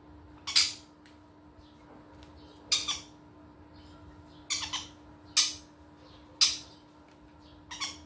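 Green-cheeked conures squawking: six short, harsh screeches, spaced a second or two apart.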